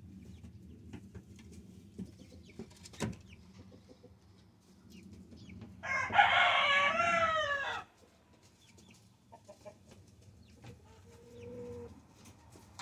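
A rooster crowing once, about two seconds long, its pitch dropping at the end, with soft clucking from the flock around it.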